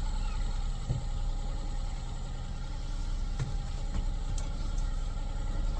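Yamaha F30 three-cylinder four-stroke outboard idling steadily while it warms up, with two light knocks, one about a second in and one past the middle.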